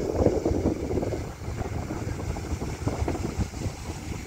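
Wind buffeting the microphone in irregular gusts, a low rumbling noise with no steady engine note.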